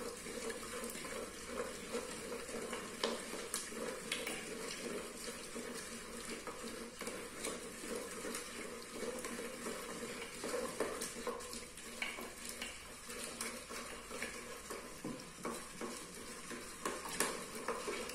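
Wooden hand masher (mathu) churning cooked kumutti keerai greens in a clay pot to make kadaiyal. A steady mashing noise is broken by many small knocks of wood against the pot.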